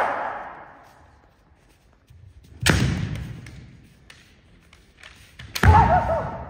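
Two kendo strikes about three seconds apart, each a bare-foot stamp on the wooden hall floor with a bamboo shinai crack, ringing on in the large hall. The second comes with a shouted kiai.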